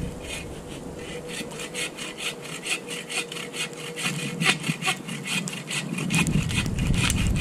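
Hand saw cutting through a firewood log, rasping in quick, even back-and-forth strokes, about four a second.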